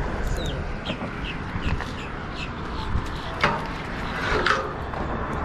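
Birds chirping in short, repeated calls over a steady low rumble, with a couple of sharp knocks near the middle.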